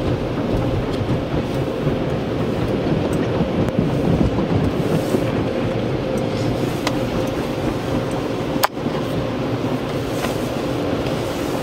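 Automatic car wash heard from inside the car's cabin: a steady rush of water spray and foam hitting the windshield and roof, with a steady machine hum under it. One sharp click comes about two-thirds of the way through.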